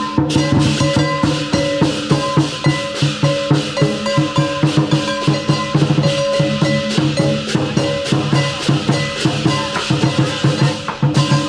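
Lion dance percussion: a large Chinese drum beaten in a fast, dense rhythm with clashing cymbals and a ringing gong, playing without pause.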